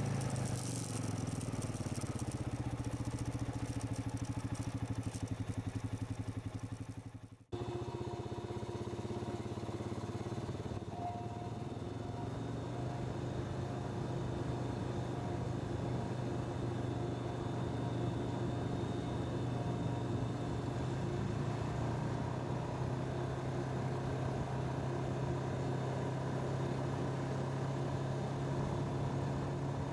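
ATV engine running steadily while riding along a paved drive, a constant engine note with little change in pitch. About seven seconds in the sound fades away and cuts straight back in.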